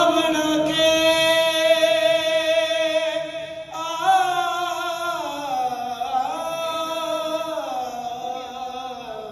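A man singing through the stage microphone, holding one long high note for about four seconds, then starting a new, higher phrase that steps down in pitch.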